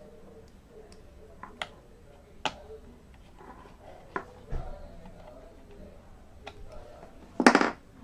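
Scattered light clicks and taps from hands handling small parts inside an open laptop while an NVMe SSD is fitted in its M.2 slot. A short, louder burst comes near the end.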